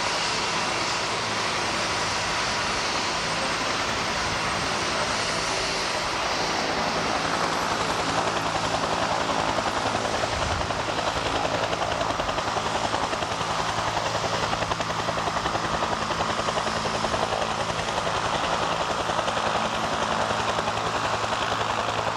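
Helicopter running steadily, with a constant engine note under a rapid rotor chop that becomes more pronounced about eight seconds in.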